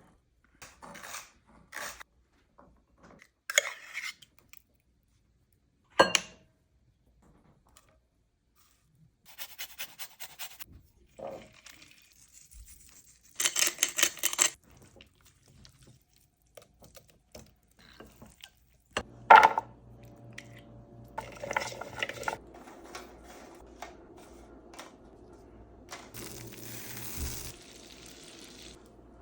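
Food-preparation sounds: dishes and cutlery clinking, knocking and scraping, with a dense rustling stretch about halfway through. From about nineteen seconds in, a steady low hum with a few held tones runs underneath.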